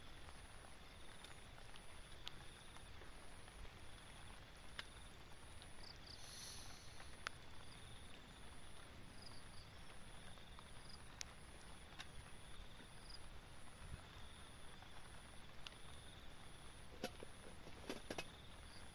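Light rain falling, a soft even hiss with scattered ticks of drops, under a faint high insect call pulsing about once a second. A few soft knocks near the end as the camper shifts in the tent.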